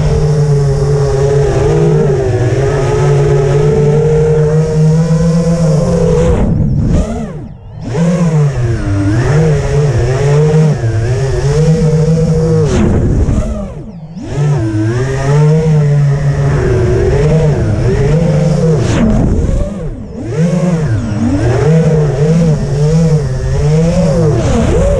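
FPV quadcopter's brushless motors and propellers buzzing, the pitch rising and falling with the throttle. The sound briefly drops away three times, about seven, fourteen and twenty seconds in, as the throttle is cut and brought back.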